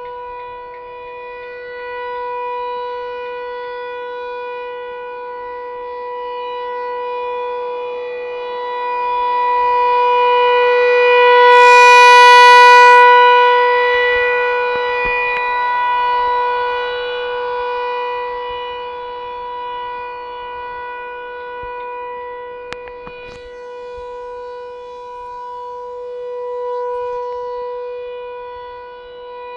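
American Signal ASC T-128 rotating electromechanical warning siren sounding during a test. It holds one steady pitch while its loudness slowly swells and fades as the horn sweeps around, loudest about twelve seconds in.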